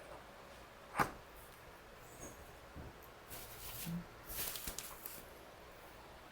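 Faint handling noises from parts being worked on: one sharp click about a second in, then two short spells of rustling or scraping.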